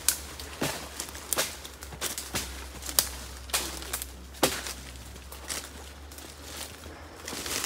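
Footsteps crunching through dry leaf litter and twigs, in irregular sharp cracks and rustles about once or twice a second.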